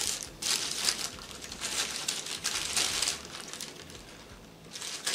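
A paper fast-food sandwich wrapper crinkling as it is unwrapped by hand, busiest in the first three seconds and quieter after.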